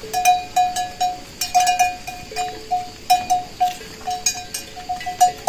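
Livestock bells clanking irregularly, several strikes a second, as the animals move. Now and then a second, lower-pitched bell rings under them.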